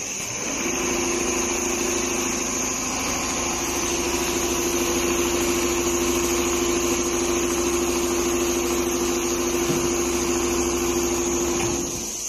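Four-head CNC leather quilting sewing machine running steadily with a steady motor hum and whine. It starts just after the beginning and stops near the end.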